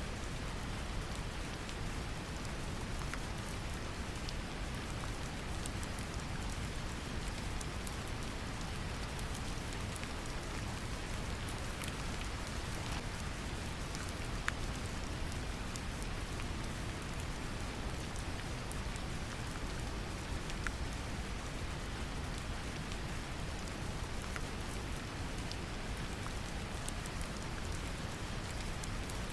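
Steady brown noise mixed with gentle rain: a deep, even rushing hiss with scattered faint drop ticks.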